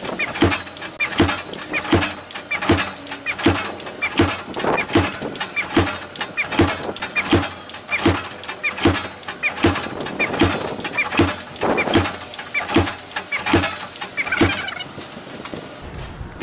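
Pick-axe impactor striking a polycarbonate glazing panel over and over in an even rhythm, about three blows every two seconds, each a sharp knock with a brief ring.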